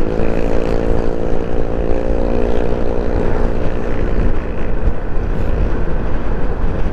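Yamaha NMAX 155 scooter's single-cylinder engine droning at a steady cruising speed of about 50 km/h, under a constant rumble of wind on the microphone. The engine's hum fades about four seconds in, leaving mostly wind and road noise.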